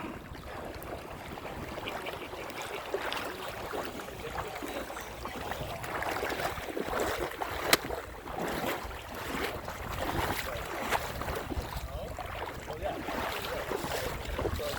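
Lake water splashing and sloshing as people move through it in a cold plunge, in many short irregular splashes, with wind rumbling on the microphone.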